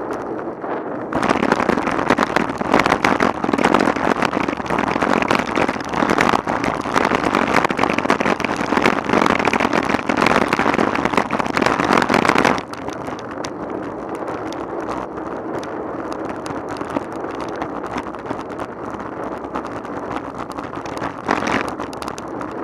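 Road bicycle rattling hard over cobblestones: a dense, rapid clatter of knocks that starts about a second in and stops suddenly about halfway through. After that come quieter, steady tyre and wind noise on smooth tarmac.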